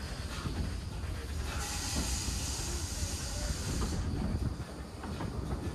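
Steam hissing from a GWR 6400 class pannier tank locomotive for a little over two seconds, starting and stopping abruptly, over a steady low rumble from the train.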